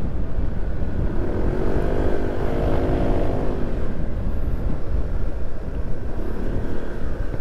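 Motorcycle engine running while riding along a road, over a steady low rumble of wind and road noise. About one and a half seconds in, an engine note rises and then falls away over about two seconds.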